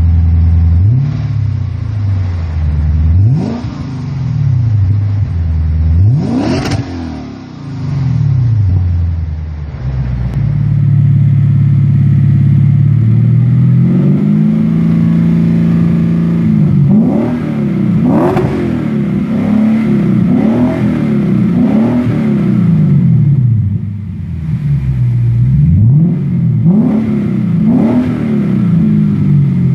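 Lexus RC F's 5.0-litre 2UR-GSE V8 being revved from idle through aftermarket exhausts: first a Tanabe Medallion Touring system with a few throttle blips and one high rev about six seconds in, then a custom exhaust held at a steady raised rev before a quick run of repeated blips.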